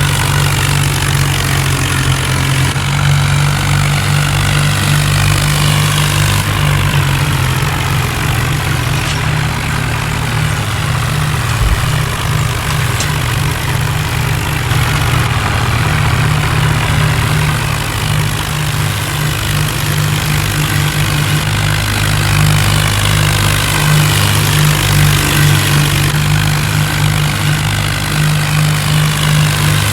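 A vehicle engine running steadily, with a deep, even drone.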